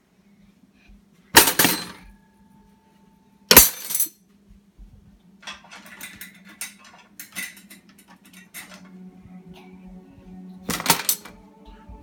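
Dishes and utensils clattering as they are taken out of a dishwasher rack and dropped into a drawer. There are three sharp clatters, about a second and a half in, about three and a half seconds in and near the end, with lighter clinks between them. A brief ringing follows the first clatter.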